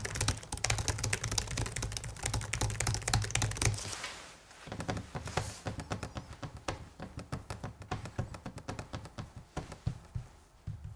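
Typing on the 2024 Asus ROG Zephyrus G16 laptop's keyboard: a fast run of key clicks for about four seconds. After a short pause comes a slower series of separate clicks from the touchpad being pressed.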